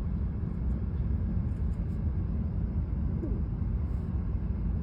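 Steady low rumble of a Shinkansen bullet train running at speed.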